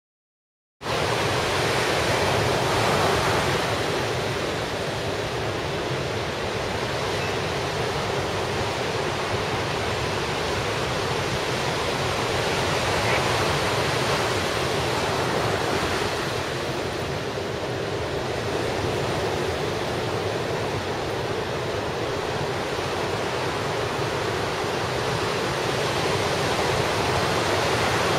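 Ocean surf breaking on a beach: a steady rush of noise that starts abruptly about a second in.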